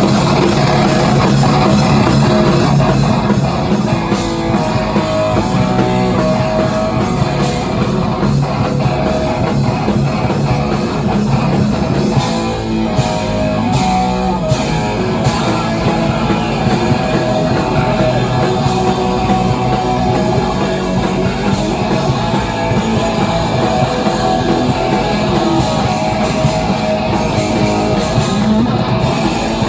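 Live, loud heavy rock band playing an instrumental passage, with distorted electric guitar and drum kit.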